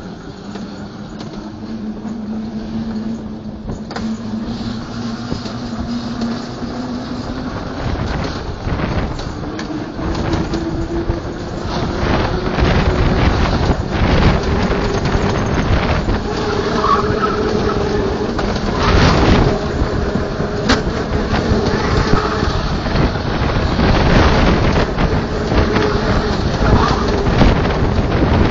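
Bobsleigh running down the track with a passenger aboard: a rumbling, rattling run that grows steadily louder as it gathers speed, with a thin whine that rises in pitch. Several sharp knocks come in the second half as the sled is thrown through the bends.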